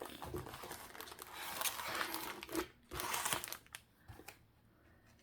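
Crinkly packaging of a diamond painting kit rustling and crackling as it is unpacked, busy for about three and a half seconds, then dying down.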